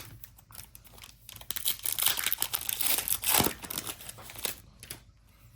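A trading-card pack's foil wrapper being torn open and crinkled, a dense crackling lasting about two seconds in the middle, with lighter rustles before and after.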